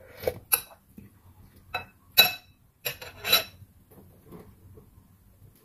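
Metal spoon and fork clinking and scraping against a glass bowl: about six sharp clinks, some ringing briefly, in the first three and a half seconds, then only faint small sounds.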